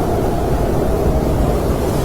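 Snowstorm wind blowing steadily: a dense, low rushing noise with no breaks or separate sounds.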